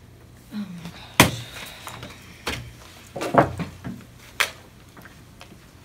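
Several sharp knocks and thuds, the loudest about a second in, as people get up from a wooden table, shift their chairs and pick up their things.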